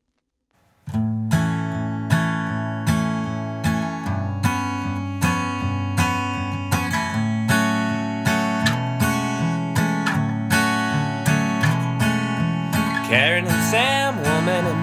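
Acoustic guitar strummed in a steady, even rhythm, starting about a second in after a moment of near silence. A man's singing voice comes in near the end.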